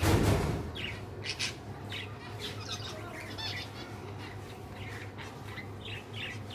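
A cage of zebra finches calling: many short, nasal chirps and squawks from several birds overlapping throughout. A brief loud rustle comes right at the start.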